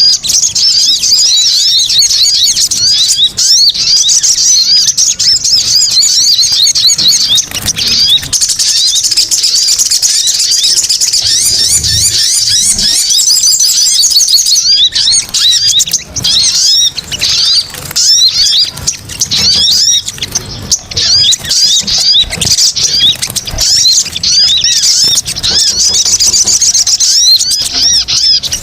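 Sogon (sogok ontong) birds calling on a lure recording: a dense, unbroken chatter of many high-pitched, overlapping chirps, as if several birds are calling excitedly at once.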